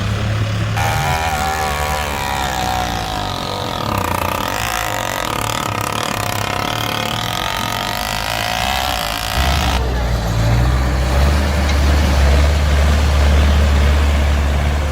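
Heavy vehicle engine running, with voices in the background. The sound shifts about a second in, and from about ten seconds in a deep, steady engine drone takes over.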